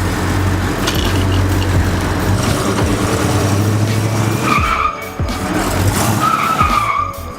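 Car engine running hard with tyres skidding. There are two short high squeals, one about four and a half seconds in and one near the end.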